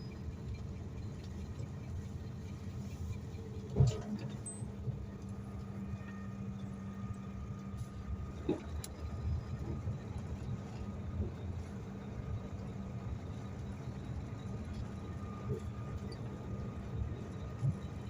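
Concrete pump truck's diesel engine running steadily with a low hum, a sharp knock about four seconds in and a few fainter clunks later.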